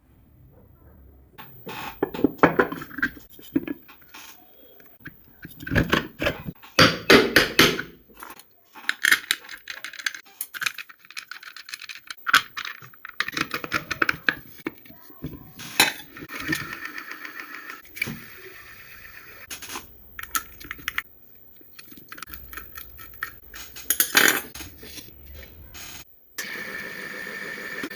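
Irregular clinks, knocks and scrapes of hands and tools working on a ceiling fan during repair. Near the end a steady humming tone sets in.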